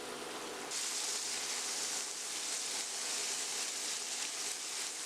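Red wine sizzling as it reduces in a hot pan with sautéed shallots over high heat. The hiss gets louder and brighter a little under a second in.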